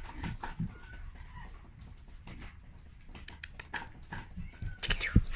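Samoyed puppy's claws clicking and tapping on wooden floorboards as it walks, in scattered bursts that grow busier in the second half, with a few faint short squeaks and a louder thump near the end.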